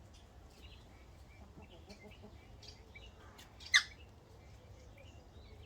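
Birds chirping faintly, with scattered short chirps, and one brief, sharp, much louder sound a little over halfway through.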